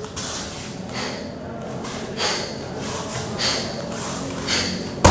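A person breathing forcefully through martial arts kata movements: short, hissing exhalations about once a second, with a sharp thump right at the end.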